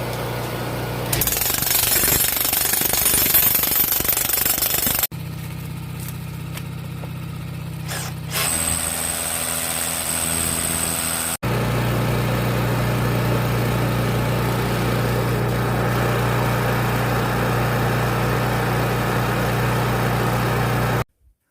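Jackhammer breaking granite bedrock, heard in three clips cut together with abrupt changes about 5 and 11 seconds in. The last clip runs steadily for about ten seconds and cuts off suddenly near the end.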